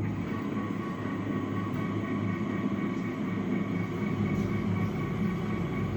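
Metal planer's drive running steadily, slowly traversing the table under a dial-indicator sweep, with an even hum and a faint steady whine. It starts suddenly at the beginning.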